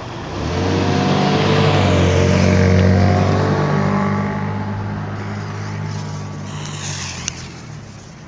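A car driving past, its engine humming low and steady with tyre hiss, swelling to a peak about three seconds in and then fading away.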